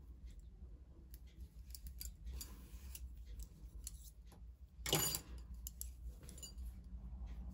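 Steel double-pointed knitting needles lightly clicking and clinking against each other as stitches are slipped off them onto a tapestry needle, with one louder metallic clink about five seconds in.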